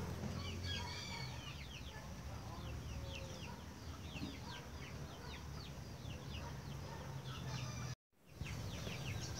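Birds chirping: a continuous run of short, high, falling chirps, with a brief dropout of the sound near the end.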